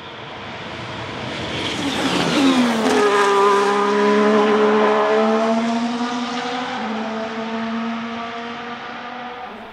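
Ferrari F1-75 Formula 1 car's turbocharged V6 passing at speed. The engine note grows louder and drops sharply in pitch as the car goes by, about two and a half seconds in, then fades as it pulls away.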